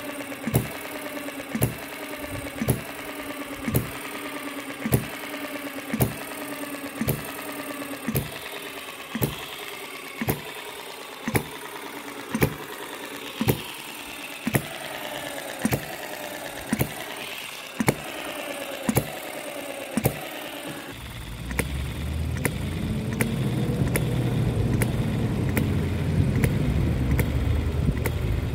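A MUSA/Retrol HM-01 7cc four-stroke hit-and-miss model engine is running, firing with a sharp pop about once a second and coasting between the firings. The firing is very even, with the carburettor dialled in. About two-thirds of the way through, a steady low rumble takes over.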